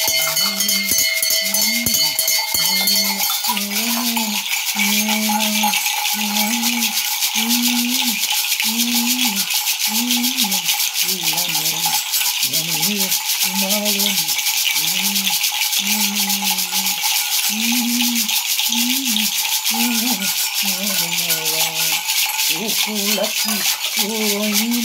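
Gourd rattles, hung with metal bells, shaken continuously in a dense rattling hiss. Under them a man's low voice chants a repeated syllable about once a second. A bell's ringing dies away about three seconds in.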